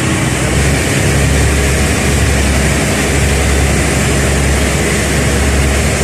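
Passenger ferry's engines running steadily under way, a loud, even low drone, with the rush of water from the churning wake.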